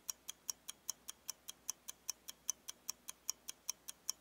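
Clock-ticking sound effect: fast, even ticks, about five a second, marking the countdown while a quiz answer is awaited.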